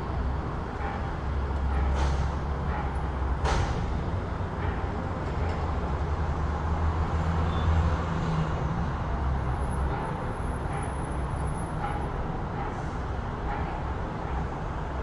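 City street traffic: a steady low rumble of passing vehicles, heavier in the first half and easing later, with two short sharp sounds in the first few seconds.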